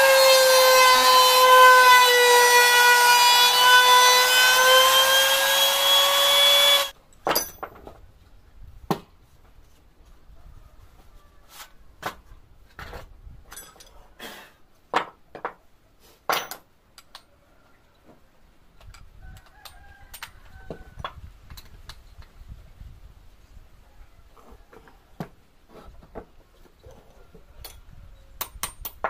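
Electric trim router running at high speed while cutting a profile into the edge of a wooden board: a steady high whine that sags slightly in pitch under load, then stops abruptly about seven seconds in. After that, scattered clicks and knocks of metal tools as the router is handled and its bit is loosened with wrenches.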